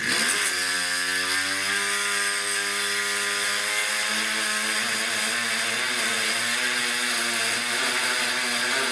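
Power cut-off tool spinning up, cutting sheet steel with a steady high whine and hiss, then winding down near the end. Its blade is worn and overdue for changing.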